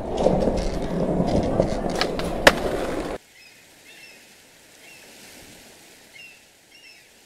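Skateboard wheels rolling, with a few sharp clacks, the loudest about two and a half seconds in. At about three seconds it cuts off to a much quieter background with faint short chirps.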